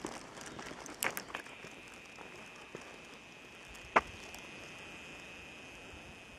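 A camera's zoom motor whining, thin and steady, from about a second and a half in, over the footsteps of someone walking on a dirt road. A few sharp clicks, the loudest about four seconds in.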